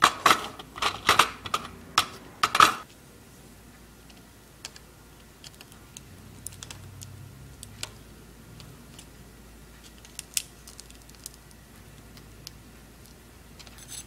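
A quick run of loud, sharp clicks and clacks in the first three seconds, then faint scattered ticks as a metal pick tool works at the taped-down battery on an iPod Nano's circuit board.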